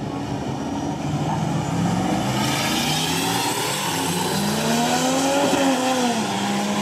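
Two Nissan GQ Patrol 4x4s accelerating hard down a drag strip. Their engines rise steadily in pitch, and a gear change drops the pitch near the end.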